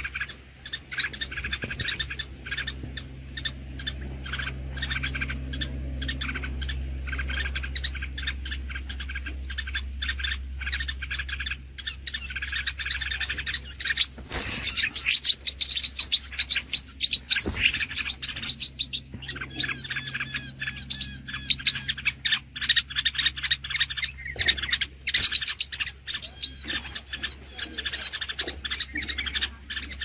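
Small birds chirping rapidly and without pause, over a steady low hum: parent birds calling in alarm as a snake raids their nest.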